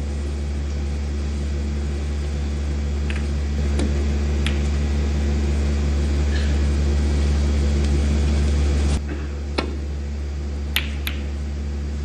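Snooker balls clicking sharply, the cue tip striking the cue ball and balls colliding, in a cluster about three to four seconds in and another near the end. A steady low hum runs underneath and drops a little about nine seconds in.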